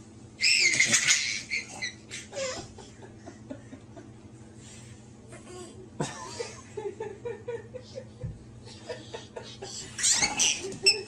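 A baby's high-pitched squeals of delight, loudest about half a second in and again near the end, with bursts of giggling laughter in between.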